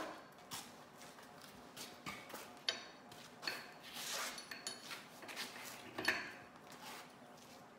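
Small metal clinks and taps, some with a short ring, as a linch pin and linch washer are fitted onto the axle end at the wooden cannon wheel's hub. The clinks come irregularly, the sharpest about a third and three quarters of the way through.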